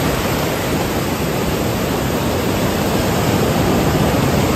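Ocean surf breaking and washing up the beach in the shallows: a steady rushing noise that swells slightly toward the end.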